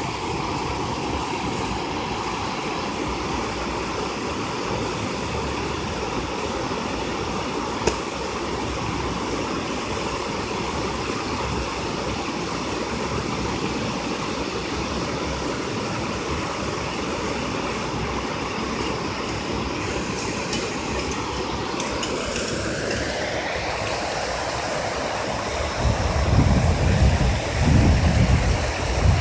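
Steady rush of river water pouring over a low-water bridge crossing. In the last few seconds, irregular low rumbling buffets come in over it.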